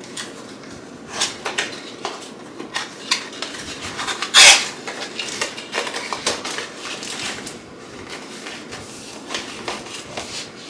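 Packaging being handled and unwrapped: a string of light clicks, taps and crinkles, with one louder rustle about four seconds in.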